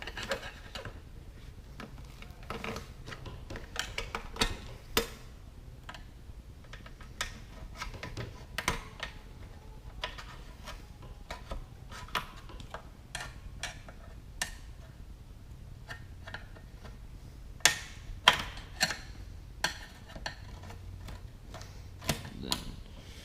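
Plastic retaining clips on a truck seat cushion being worked and popped off the seat frame by hand: irregular clicks and small snaps, with a few sharper, louder snaps near the end.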